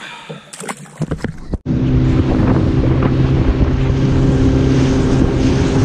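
A motorboat engine running steadily, with wind on the microphone and rushing water. It comes in suddenly about a second and a half in, after a few short clicks and knocks.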